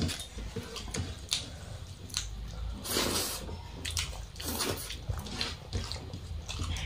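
Eating by hand: wet chewing and smacking, with fingers squishing and mixing rice and egg curry on steel plates. The sounds come as irregular squelches, with two longer, louder ones about three and four and a half seconds in, over a low steady hum.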